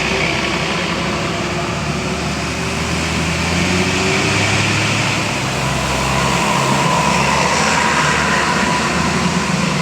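Road traffic noise, with a large vehicle's engine running steadily and no horn tune sounding.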